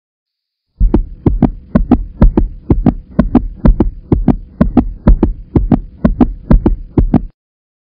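A rhythmic pulsing sound effect: deep double thumps, a little over two pairs a second, starting about a second in and stopping abruptly near the end.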